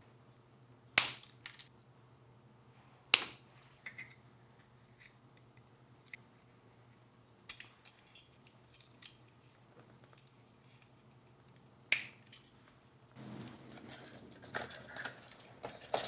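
Sharp snips of flush wire cutters trimming wire leads, two loud ones about a second and three seconds in. Then scattered small clicks of 9-volt batteries and plastic parts being fitted, with another loud snap near twelve seconds. From about thirteen seconds, rubbing of the 3D-printed plastic box sliding into a cardboard battery case.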